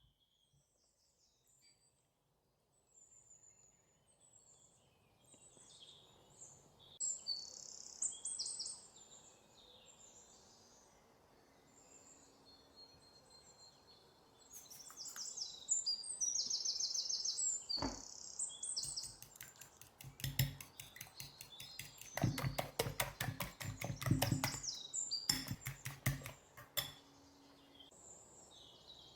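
Small birds chirping in the background throughout. From about halfway, runs of rapid, evenly spaced clicking strokes, the loudest sound, typical of kitchen utensil work.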